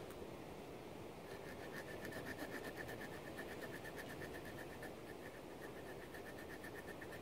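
The folding saw blade of a Camillus Trekus Pro multitool cutting through a small log, rasping in quick, even back-and-forth strokes, several a second, starting about a second in.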